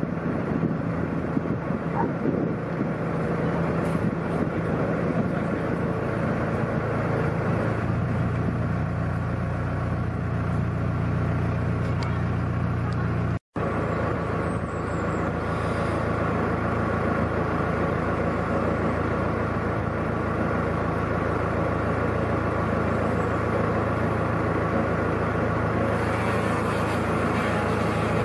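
Narrowboat diesel engines running at a steady low, even hum. The sound cuts out completely for an instant about halfway through, then the steady engine hum carries on.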